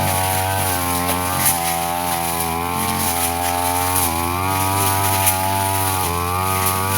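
Brush cutter engine running at working speed while slashing grass, its pitch dipping and recovering every second or two, with scattered short clicks.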